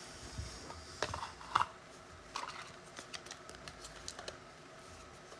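Scattered light clicks and taps from things being handled on a tabletop. The loudest tap comes about one and a half seconds in, and a looser run of small clicks follows until near the end.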